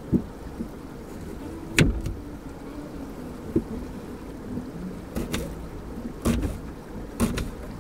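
Kitchen knife cutting an onion on a wooden chopping board: about six separate knocks of the blade reaching the board, spaced irregularly, the loudest about two seconds in.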